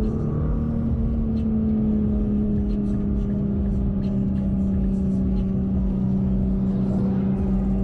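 Nissan GT-R R35's twin-turbo 3.8-litre V6 heard from inside the cabin, cruising at light throttle around 60 km/h with a steady drone that sags slightly in pitch as the car slows a little. Scattered faint clicks sound over it.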